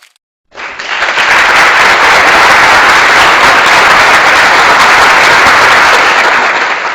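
Crowd applauding: dense, steady clapping that starts about half a second in and fades out near the end.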